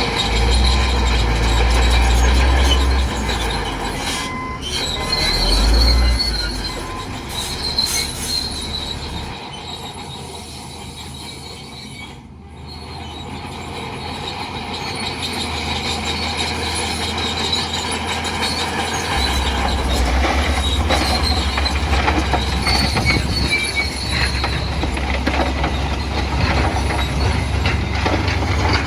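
Bulldozer working: its diesel engine runs under a loud metallic squeal and clatter from the steel crawler tracks. The engine's low rumble drops away around the middle, then comes back strongly.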